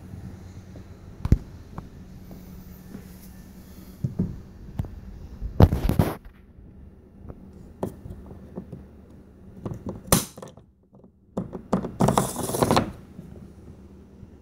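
Handling noise: scattered knocks and clicks and two short bursts of rubbing or scraping as hands and the camera move over the kayak's hard plastic hull and fittings, over a low steady hum.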